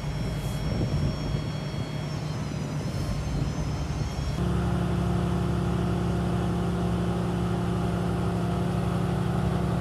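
A motor or engine running steadily with a constant hum; about four and a half seconds in it changes abruptly to a louder, steadier drone.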